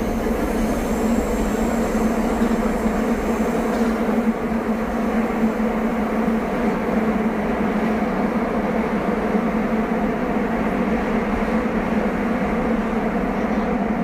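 Rinkai Line train running between stations, heard from inside the passenger car: a steady rumble of wheels on rail with a low hum. A faint high whine sits over it for the first few seconds.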